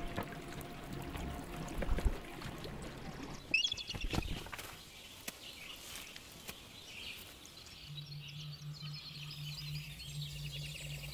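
Water sounds with a few sharp splashes in the first few seconds, and a bird's quick run of high chattering notes about three and a half seconds in. High bird twittering follows in the second half over a low steady hum.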